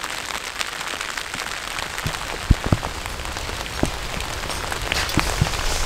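Rain falling: a steady hiss with scattered sharp drop hits.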